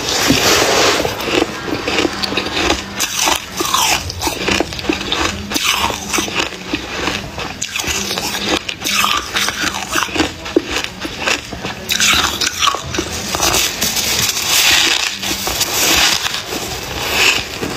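Freezer frost being bitten and chewed close to the microphone: many crisp crunches and crackles in quick succession as the packed, snow-like ice breaks up in the mouth.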